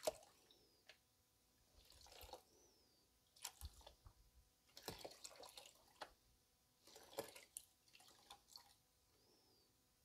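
Quiet water sloshes and splashes from a green plastic gold pan being dipped and swirled in a tub of soapy water to wash down paydirt. The splashes come in short bursts every second or two.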